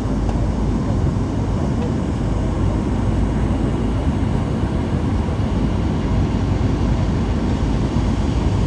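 Steady engine and airflow noise inside the cabin of a Boeing 737-800 on approach to landing, with a faint steady tone running through it.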